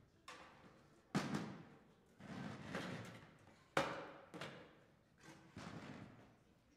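Metal music stands and chairs being moved about on a wooden stage: two sharp knocks that ring in the hall, about a second in and near four seconds, with scraping and footsteps between.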